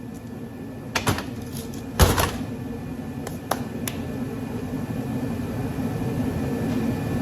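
Metal knocks and clanks from handling the parts of a dismantled golf cart charger, a handful of sharp strikes with the loudest about two seconds in. Under them runs a steady low hum that slowly grows louder.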